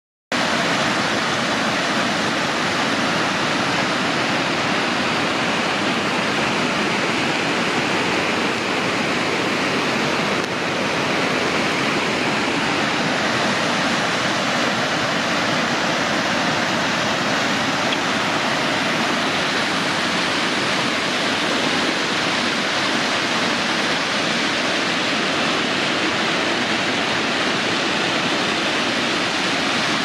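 Water pouring over a row of low travertine cascades into a fast stream, swollen by heavy rain: a loud, steady rush of white water.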